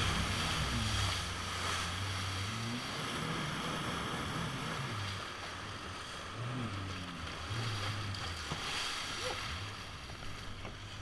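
Jet ski engine running on the water, its pitch rising and falling several times with the throttle, over a steady rush of water spray and wind.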